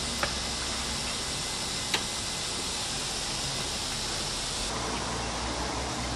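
Steady hissing noise, with a couple of faint clicks near the start and one about two seconds in.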